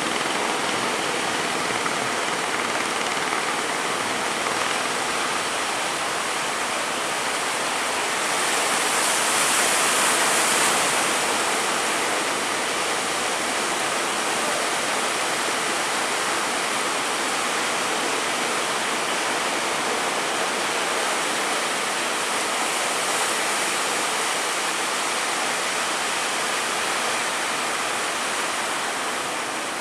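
Rough sea water rushing steadily, swelling louder for a couple of seconds about nine seconds in.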